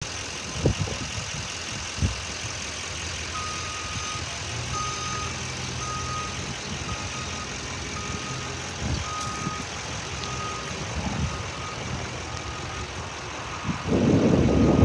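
2011 GMC Sierra 2500HD pickup engine idling steadily. A high reversing beeper sounds on and off from about three seconds in, and a louder burst of low noise comes near the end.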